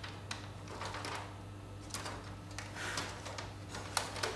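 DTF film printer running: a steady hum with scattered sharp clicks and short mechanical whirs from its feed and carriage mechanism.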